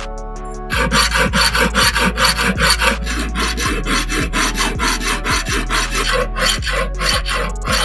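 Flat hand file rasping back and forth across the edge of a silver ring in quick, regular strokes, starting just under a second in.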